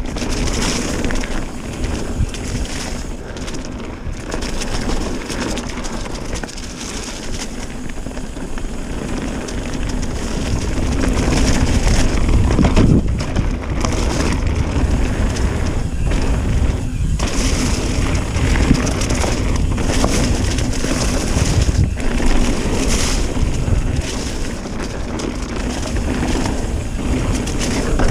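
Trek Remedy full-suspension mountain bike descending a rough downhill trail: wind buffeting the microphone over tyre rumble, with the bike rattling and clacking over rocks and roots.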